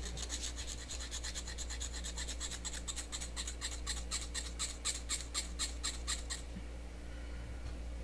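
Small needle file rasping back and forth over the glued metal seam of a can-made wheel, in quick even strokes of about four or five a second, smoothing the joint. The filing stops about six seconds in.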